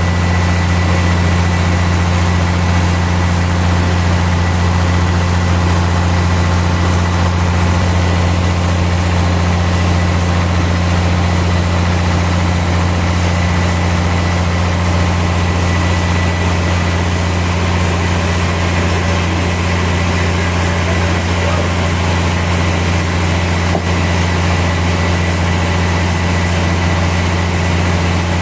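Sawmill machinery running steadily: a loud, unchanging low drone with a thin high whine above it.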